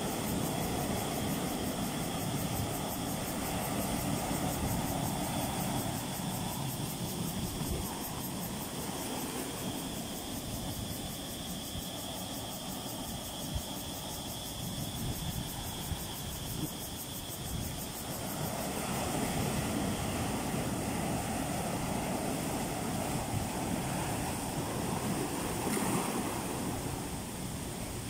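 Small ocean waves breaking and washing in over rocks and sand in a continuous surf wash, swelling and easing as each wave runs in; quieter in the middle and louder again in the last third.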